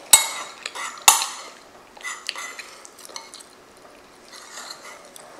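Metal utensil clinking and scraping against a ceramic bowl while scooping lasagna: two sharp clinks in the first second or so, then softer small taps and scrapes.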